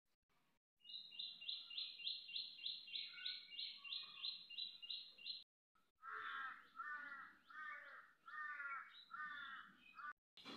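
Birds calling: a quick run of high, evenly repeated notes, about three or four a second, then a slower series of about seven lower, falling calls. The sound cuts to silence briefly between the two runs.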